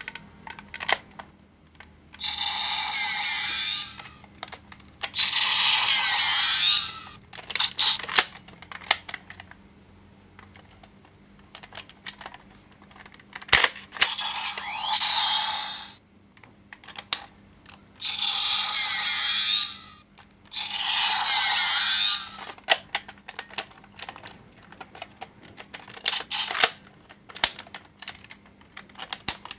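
Bandai DX Morphin Blaster toy playing electronic sound effects through its small speaker, in five bursts of about two seconds each. Sharp plastic clicks and snaps come between the bursts as its buttons are pressed and the phone is folded and unfolded.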